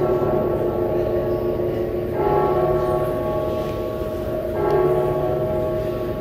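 A deep bell tolling slowly from the dance's recorded soundtrack, three strokes about two and a half seconds apart, each ringing on until the next.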